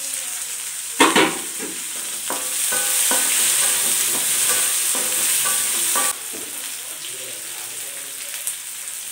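Chopped onions and garlic sizzling in hot oil in a steel kadai while a wooden spatula stirs them, scraping against the pan in short strokes. A clatter comes about a second in, and the sizzle is loudest from about two and a half to six seconds in, then drops suddenly to a softer hiss.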